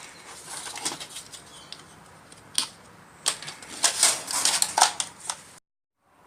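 Irregular clicks and light clattering of hard plastic computer-case parts being handled, ending in a sudden cut to silence.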